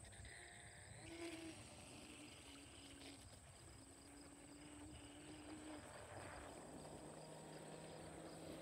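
Faint, steady hum of a radio-controlled boat's motor running at low throttle, its pitch shifting a little as it cruises.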